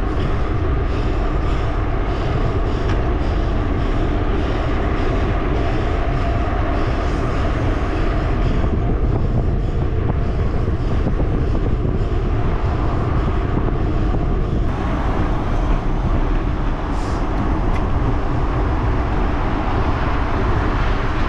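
Steady wind noise on the microphone of a camera mounted on a mountain bike ridden at speed on a paved road, with tyre and road noise underneath.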